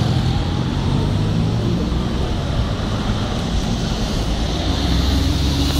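City road traffic: a steady low drone of bus and car engines over road noise.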